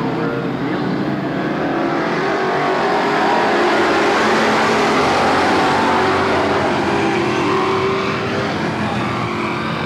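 A pack of dirt-track stock cars racing at full throttle, their engines building to a loud peak as the field passes about halfway through, then easing off.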